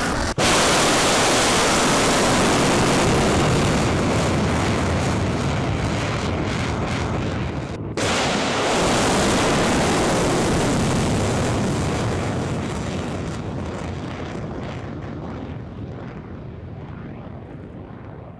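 Ballistic missile's rocket motor firing at lift-off from a rail-car launcher: a loud, steady rushing noise with two brief drop-outs, one just after the start and one about eight seconds in. It then fades gradually over the last several seconds as the missile climbs away.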